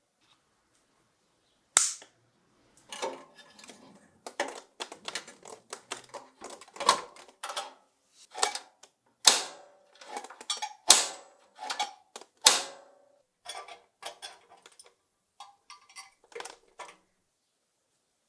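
Irregular series of sharp clicks and knocks of small hard parts, some single and some in quick runs, the loudest few standing out, stopping about a second before the end.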